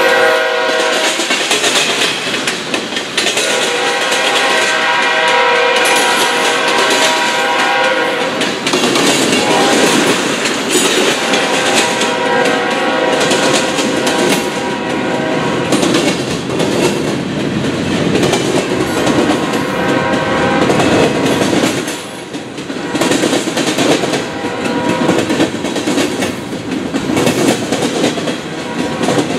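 Freight cars rolling past with wheels clattering over the rail joints, while a locomotive horn sounds a long blast and then several shorter ones.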